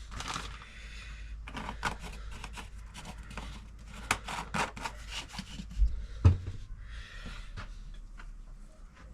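Handling noise from the fork oil bottle and plastic measuring jug: scattered clicks, taps and rubbing, with two louder low knocks about six seconds in.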